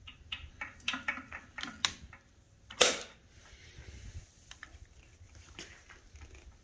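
Metal clicks and clacks from the parts of an MG81Z twin machine gun being handled, a quick run of them at first and one loud clack about three seconds in.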